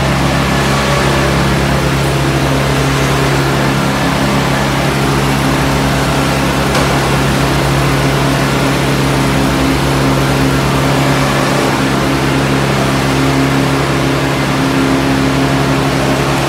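Engine of a motorized concrete buggy running steadily, a constant low drone with a fast pulsing beat.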